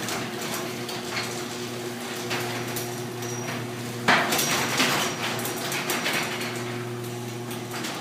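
Garage door opener motor running steadily as the sectional garage door rolls down its tracks, rattling, with a louder clunk about four seconds in. The clunk marks the sagging middle section still dropping as the door closes, though the popping is gone.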